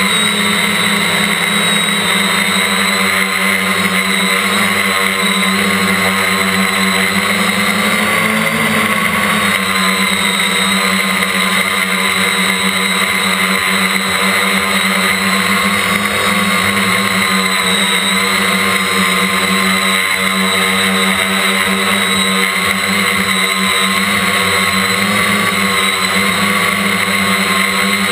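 Quadcopter's electric motors and propellers whining steadily, heard up close from a camera mounted on the craft, with a few small wavers in pitch.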